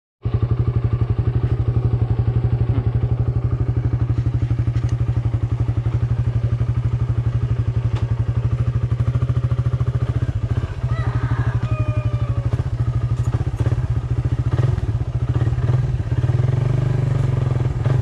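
A vehicle engine running steadily at an even speed, with a rapid, regular firing pulse.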